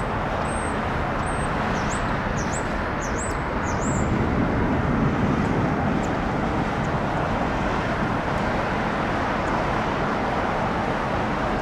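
Steady jet airliner engine noise that swells slightly about four to six seconds in. A small bird chirps several times in the first few seconds.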